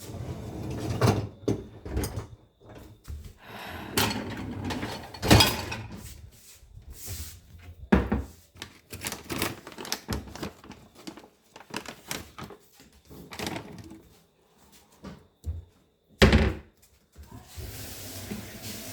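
A dishwasher being handled, with irregular clunks, knocks and clatter of the door, racks and dishes. Near the end a steady hiss of water spray starts as the wash runs.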